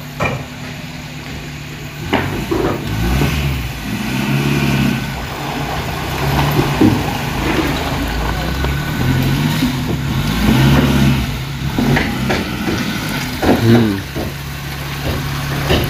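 A vehicle engine idling, then revved up and down repeatedly for about twelve seconds as it is manoeuvred, and settling back to idle near the end.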